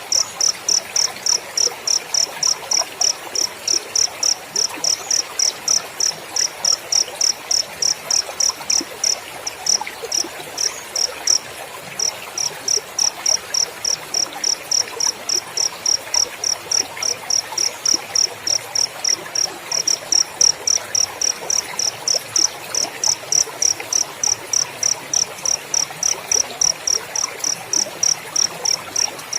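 Cricket chirping steadily in a fast, even train of high-pitched chirps, about three to four a second, with a brief break about eleven seconds in.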